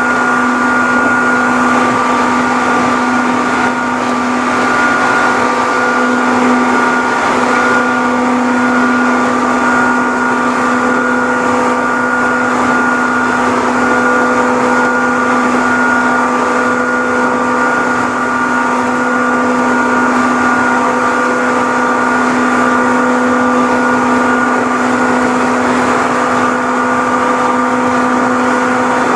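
Seibu New 101 series electric train running, heard from inside the front motor car's cab: a loud, steady whine from its traction motors, holding one pitch at a constant speed, over the rumble of the wheels on the track.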